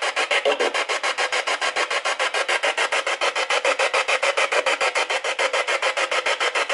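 Spirit box sweeping through radio frequencies: a rapid, choppy static cut into even pulses of about eight a second.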